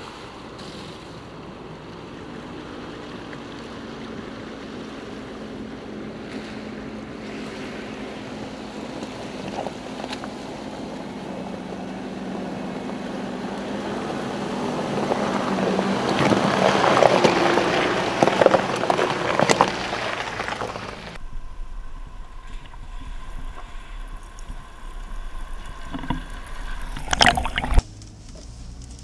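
Volkswagen Touareg SUV wading through a muddy water crossing: the engine runs steadily while water sloshes and splashes around the body, growing louder past the middle. About two-thirds of the way through, the sound cuts off suddenly to a quieter inside-the-cabin hum, with a sharp thump near the end.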